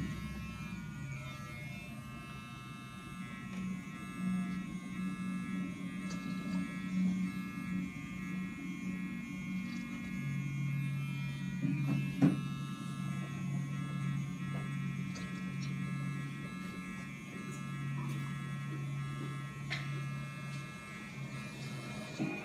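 Electric hair clippers buzzing steadily while cutting hair, with one sharp knock about twelve seconds in.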